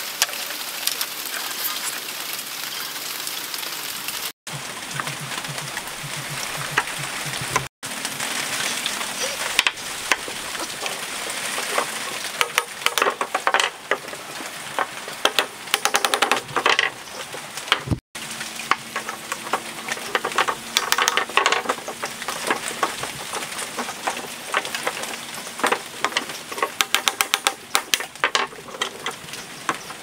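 Hand work on PVC pipe and fittings: a dense crackle of scraping plastic with many small clicks and taps from pipes and tools. The sound drops out abruptly three times.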